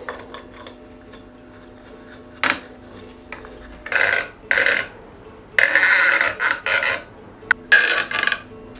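Blue segmented plastic flexible air nozzle creaking as it is bent into position, in a series of loud bursts, the longest about a second and a half just past the middle. A faint steady hum runs underneath.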